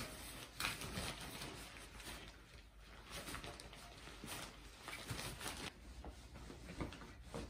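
Two Norwich terrier puppies tussling over a toy in a white fabric cat play tunnel: irregular rustles of the tunnel and scuffles on the carpet.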